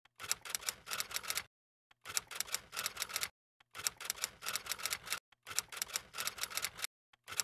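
Typewriter typing sound effect: runs of rapid key clicks, each run lasting about a second, broken by short pauses. It sounds along with on-screen text being typed out.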